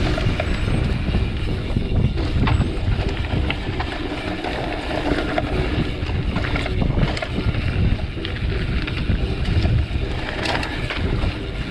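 Riding noise from a mountain bike descending a dirt trail. Wind buffets the camera microphone as a steady low rumble, the tyres roll over dirt and dry leaves, and the bike gives scattered clicks and rattles over the bumps, with a busier patch of rattling near the end.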